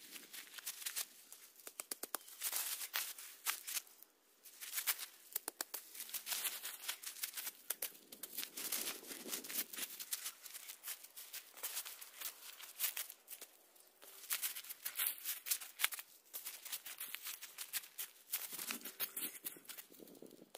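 Bouts of crackling and rustling, one every two to three seconds, made of quick dense clicks.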